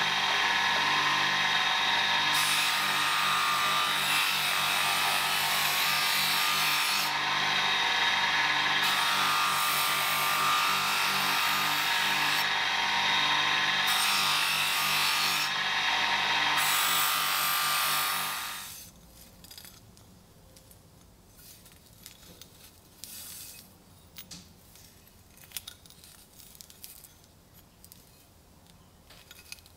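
Bench electric motor spinning a cloth buffing wheel, with a knife blade held against it to polish it: a steady motor hum under a rubbing hiss that comes and goes as the blade touches and leaves the wheel. The sound stops suddenly about two-thirds of the way through, leaving only faint clicks from handling.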